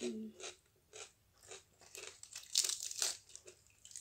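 Close-miked chewing of chicken feet adobo, with wet crunching and smacking mouth sounds about twice a second, loudest between two and three seconds in.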